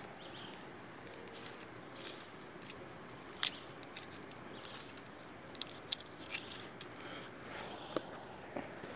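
Quiet outdoor ambience with a faint steady high hum and scattered small clicks and crackles, the loudest about three and a half seconds in.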